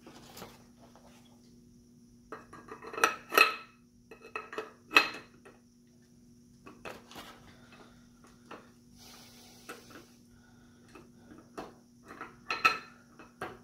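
Nickel-finished steel double barrels of a 12-gauge coach gun clinking and knocking as they are handled and lifted out of their box, a scatter of sharp metallic clicks with a brief ring, the loudest a few seconds in, about five seconds in and near the end. A short rustle about nine seconds in.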